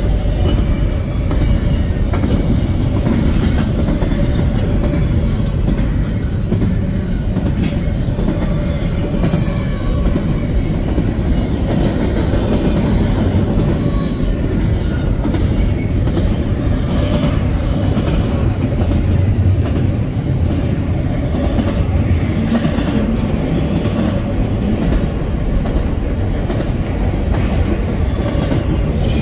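Double-stack container train's well cars rolling past: a steady low rumble of steel wheels on rail, with a faint steady whine and occasional clicks.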